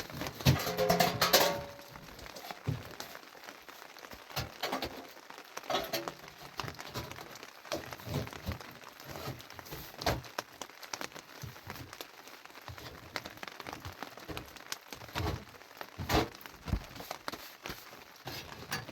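Irregular sharp knocks, clacks and crackles, spaced roughly a second apart, with a louder clatter about a second in.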